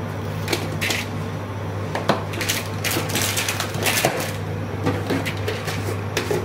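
Irregular crackles and clicks of kitchen handling over a steady low hum, as whole spices are added to a pot of goat trotters in water.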